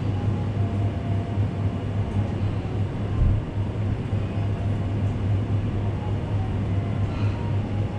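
Coffee shop ambience: a steady low hum under a constant background din, with a faint short clatter near the end.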